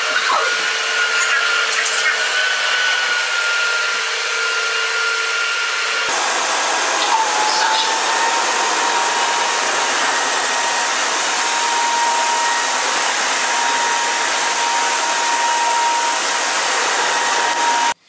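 ROIDMI NEO cordless wet-and-dry vacuum running steadily, a rushing motor noise with a thin high whine. About six seconds in the sound changes abruptly and the whine settles at a lower pitch.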